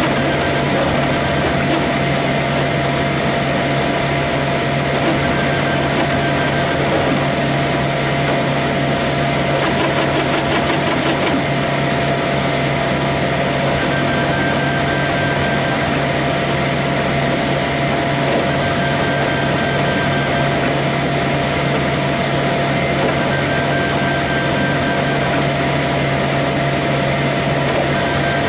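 Flashforge Dreamer 3D printer running a print: a steady fan hum and motor whine, with short high tones that come and go every few seconds.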